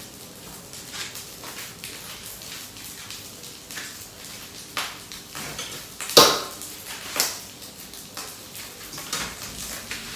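Kitchen clatter: scattered knocks and clinks of dishes and utensils, the loudest a sharp knock about six seconds in, with another about a second later.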